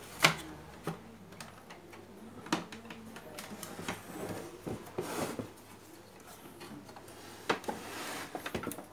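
Clicks, knocks and rattles of an opened CRT TV's circuit board and plastic chassis being handled, irregular and scattered, with one sharp click just after the start as the loudest.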